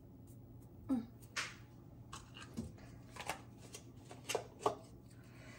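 Dried mint leaves being crumbled between fingers and sprinkled over a pot of stew: about half a dozen faint, short, dry rustles.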